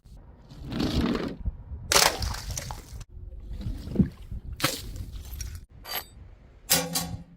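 A quick series of separately cut drops and smashes: about five sudden impacts a second or so apart, each a crack or crunch of something breaking. The last, near the end, carries a brief ringing tone.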